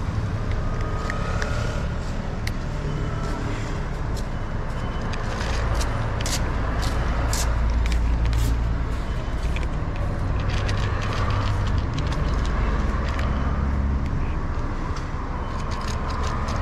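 Low, steady rumble of street traffic, heaviest about halfway through, with a cat chewing food from a plastic dish close by in crisp clicking ticks that come thickest in the middle.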